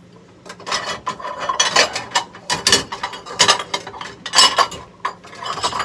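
Dishes and utensils clattering in a wire dish rack as they are rummaged through: a run of irregular knocks and clinks starting about half a second in.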